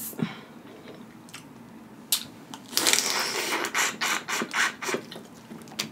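Close-miked eating of a boiled crawfish: wet sucking and smacking at the mouth with shell clicks, starting about two seconds in and running for about three seconds.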